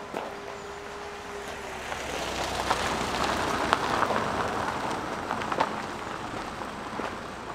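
A vehicle passing, its noise swelling and fading over about four seconds, over footsteps on a path. A steady hum stops about two seconds in.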